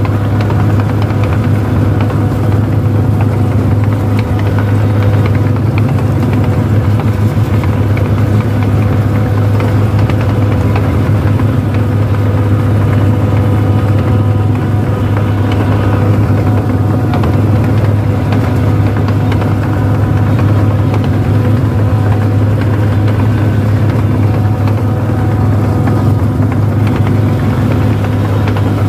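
Rice combine harvester's engine running steadily with a loud low drone and a few steady overtones as the machine travels slowly along a narrow dirt track.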